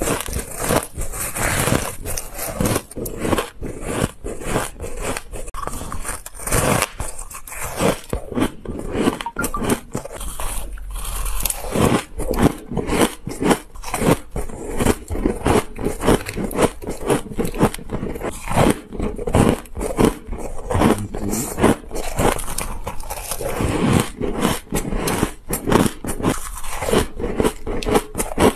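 Close-miked biting and crunching of packed, snow-like shaved ice: a dense run of crisp crunches that keeps going with only brief gaps.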